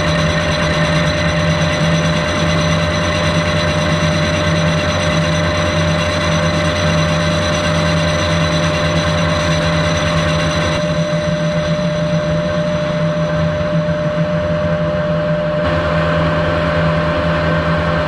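Metal lathe running at low speed, a four-jaw chuck spinning a casting while the tool faces it off: a steady low hum of motor and gears with a steady whine, over the even scrape of the cut.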